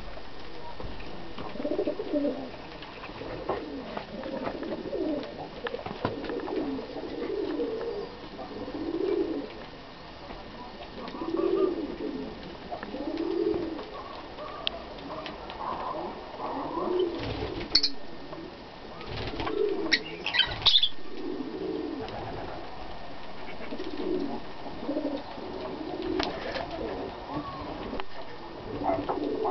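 Low, soft cooing calls from a bird, repeated roughly once a second with pauses. A few short, shrill chirps from feeding lovebirds cut in past the middle and again near the end.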